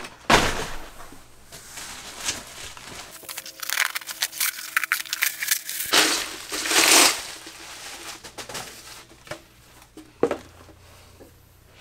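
Packing paper and wrapping crumpling and rustling as parts are dug out of a cardboard kit box, in irregular bursts, loudest just after the start and again around six to seven seconds in.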